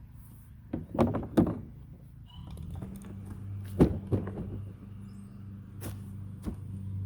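Several knocks and clunks, a quick cluster about a second in and single sharp ones later, over a low steady hum that starts a couple of seconds in.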